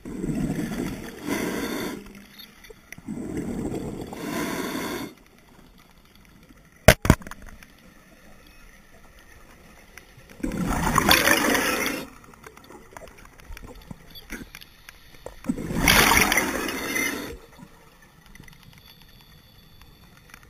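Scuba diver's regulator breathing, heard from a head-mounted camera underwater: bursts of exhaled bubbles gurgling and rushing for a second or two at a time, twice in the first five seconds, then about eleven and sixteen seconds in. A sharp double click comes about seven seconds in.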